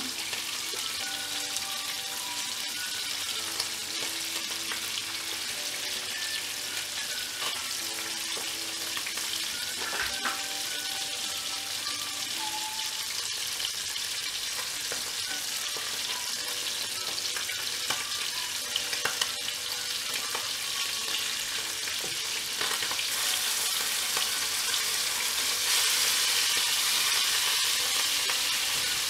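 Masala-coated sardines shallow-frying in hot oil in a pot, sizzling steadily, with a few light clicks of a wooden spatula and fork as the fish are turned. The sizzle grows louder over the last several seconds.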